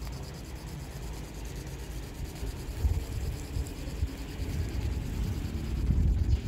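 Wind buffeting an outdoor microphone: a low rumble that swells in gusts about three seconds in and again near the end.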